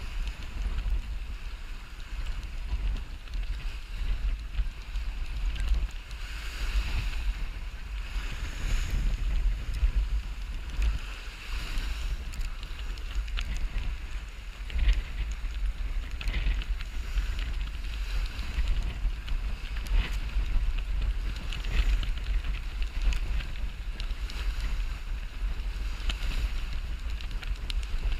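Wind buffeting the microphone on a sailboat under way, with water rushing along the hull in repeated swells every couple of seconds.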